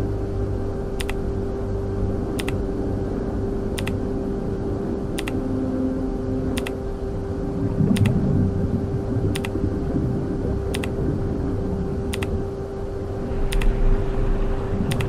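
Laundromat machines running with a steady hum and low rumble, and a sharp click repeating about every one and a half seconds.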